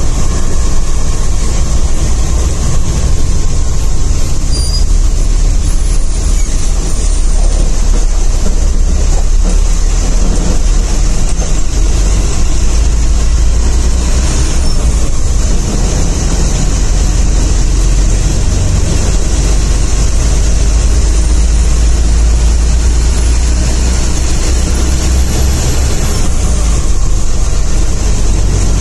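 Sleeper bus's diesel engine and tyres heard from inside the cabin while driving: a steady low rumble with a constant hiss over it.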